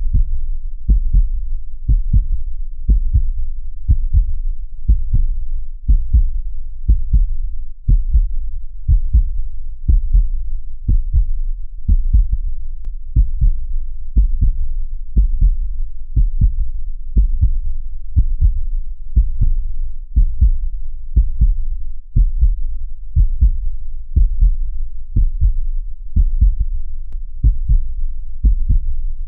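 Heartbeat: a steady, evenly paced rhythm of low, dull thumps.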